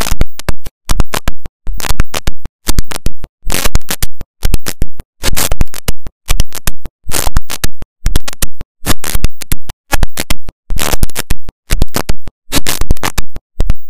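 Loud music from a video montage's soundtrack, chopped into short bursts about twice a second with silent gaps between.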